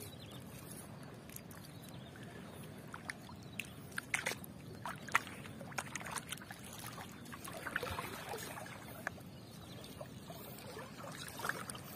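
Water sloshing and dripping in scattered small splashes and clicks over a low steady rush of water.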